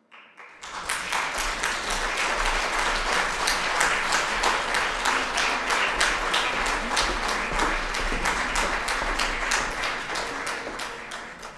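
Audience applauding: the clapping breaks out about half a second in, runs dense and even, and begins to thin near the end.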